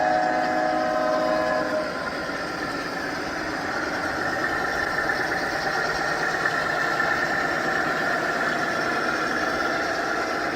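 Sound-equipped 1:29 scale model diesel locomotives (SD9s and a GP60 on RailPro): a multi-note horn blows for under two seconds, then the onboard diesel engine sound runs steadily.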